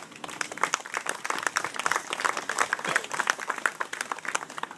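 A group of people applauding, with dense, irregular hand claps that thin out and die away near the end.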